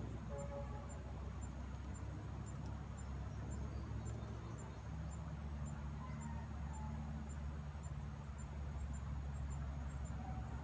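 Insects, crickets by their kind, keeping up a steady high-pitched drone with a faint pulse about twice a second, over a low steady rumble. A few faint short bird calls come through now and then.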